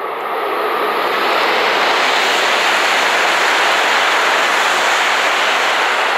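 JR Hokkaido H5 series Shinkansen running through the station at high speed without stopping: a loud rushing noise that builds over the first second or so, then holds steady as the train passes.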